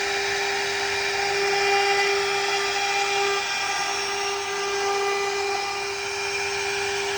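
CNC router spindle cutting marble: a steady high-pitched whine over a grinding hiss from the bit in the stone.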